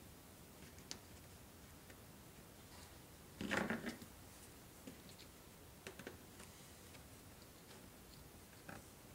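Faint scattered clicks and taps of fingers and small hand tools handling plastic sleepers and track, with one brief louder handling noise about three and a half seconds in.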